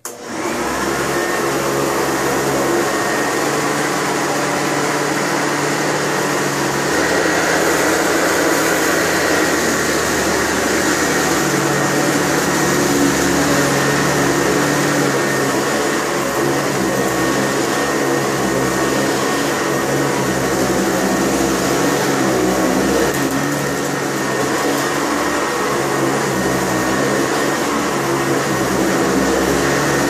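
Sanitaire SC899 wide-track commercial upright vacuum running steadily with a constant motor whine, being pushed back and forth as it sucks up shredded paper.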